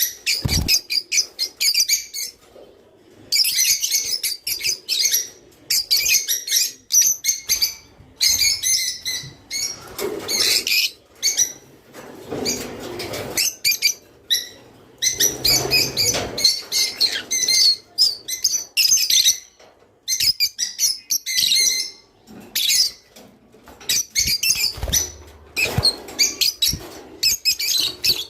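A group of small cage birds chirping and singing in quick, high, busy phrases with brief pauses, along with a few soft wing flutters. It is the kind of flock song played to pet birds to encourage them to breed.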